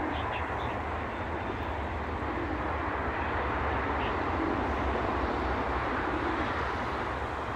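Steady outdoor background rumble, a little louder a few seconds in and easing off near the end.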